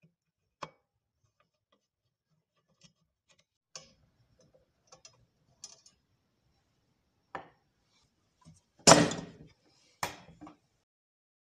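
Small metallic clicks and taps as a rusty air rifle's pivot screw is worked loose and unscrewed, then two louder metal knocks near the end as the steel parts come apart on the wooden bench.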